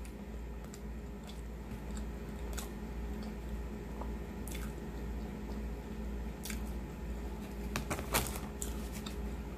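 A person chewing a mouthful of pulled pork sandwich close to the microphone: soft, wet, squishy chewing with scattered mouth clicks and smacks, over a steady low hum. A louder mouth sound comes about eight seconds in.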